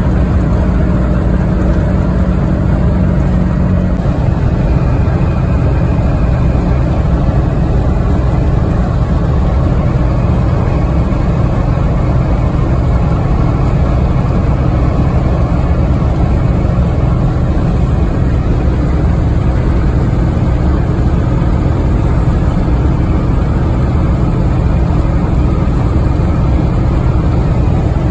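1996 Ford F350's 7.3 Powerstroke turbo-diesel V8 running steadily at highway speed, heard from inside the cab over road noise; its low note drops a little about four seconds in.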